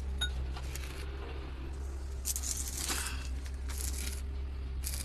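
A steady low hum of machinery, with a few short scraping and rustling noises from hands and tools at work on the bulldozer's differential, as it is opened to drain old gear oil.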